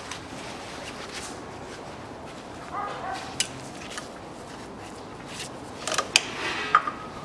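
Pliers and a metal hose clamp clicking and clinking as a rubber hose is fitted back onto a fitting by the external CVT filter. A few sharp clicks about six seconds in, with a couple of short squeaks.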